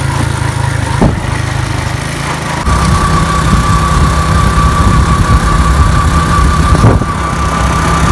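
Motorcycle engine running as the bike is ridden along a road, a steady low rumble that changes abruptly at edits about a second in, near three seconds and near seven seconds. From about three seconds in, a thin steady whine runs over the rumble.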